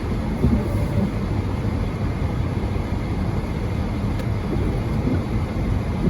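Car driving on a snowy road, heard from inside the cabin: a steady rumble of engine and tyres, with strong wind outside.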